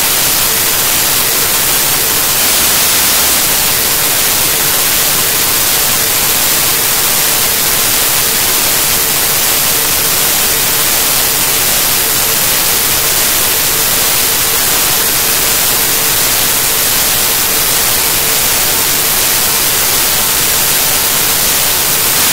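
Loud, steady static hiss, brightest in the treble, with a faint steady tone underneath.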